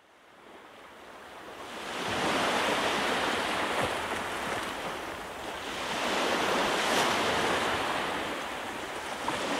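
Ocean waves surging, fading in from silence and rising and falling in two slow swells, used as a sound effect in the mix.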